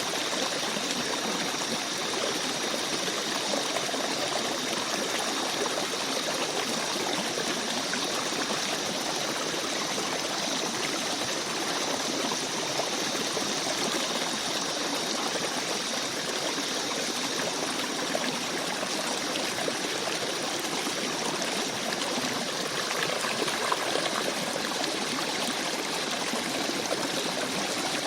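A shallow forest stream babbling over stones, a steady, even rush of flowing water.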